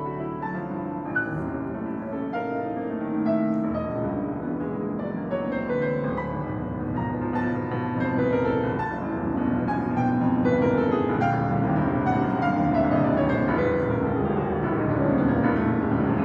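Solo piano in a live performance of a contemporary classical piano concerto, playing dense passages with falling runs of notes, growing louder about ten seconds in.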